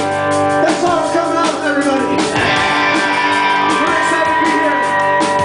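Live rock band playing: electric guitar ringing over drums, with a man's voice singing over the top.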